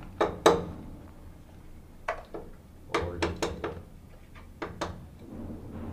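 Sharp metal clicks and clinks in a few quick clusters, as the joint plates of an 800 A bus duct are shifted into level and an adjustable spanner knocks against the metal.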